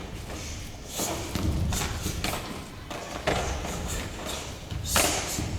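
Karateka's bare feet stepping and stamping on the floor during a karate kata or paired bunkai demonstration: a series of separate thuds about a second apart, the strongest near the end.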